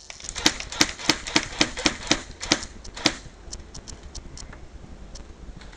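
Airsoft guns firing: sharp clicking shots in quick, irregular succession, several a second for about three seconds and then sparser.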